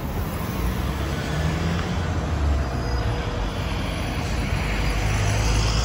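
City street traffic noise: vehicles passing in a steady low rumble that grows a little louder near the end as one passes close.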